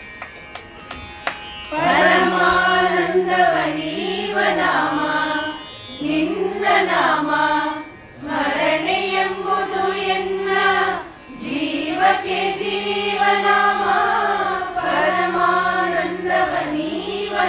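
A group of women singing a Kannada devotional song together in unison, in phrases with short pauses between them. The singing begins about two seconds in.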